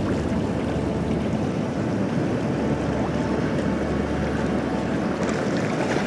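Small sea waves washing in over a pebble beach: a steady hiss of surf with a low rumble, a wave running up the stones near the end.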